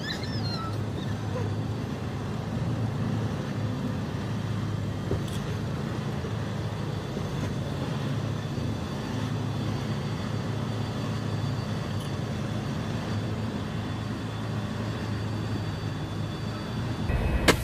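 Semi truck driving, a steady low drone of engine and road noise.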